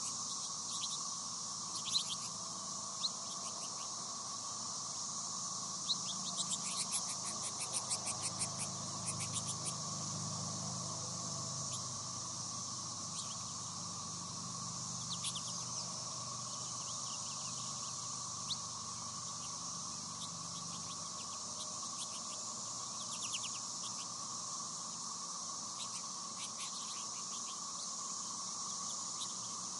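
A flock of American goldfinches at tube feeders giving short scattered chirps, with a quick run of twittering about six to ten seconds in, over a steady high insect drone.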